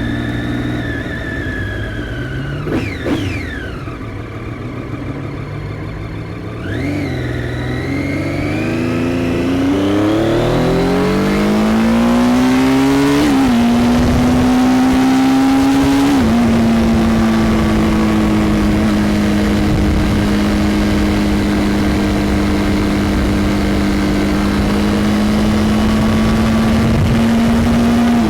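Triumph Daytona 675's 675 cc inline three-cylinder engine accelerating hard, its pitch climbing steadily, with two quick upshifts about halfway through, then holding a steady cruise.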